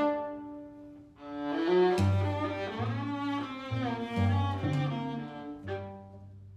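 String quartet of two violins, viola and cello playing: a held chord fades out, then a sharp accented attack about two seconds in starts a run of short low cello notes under the upper strings, and a final short stab dies away near the end.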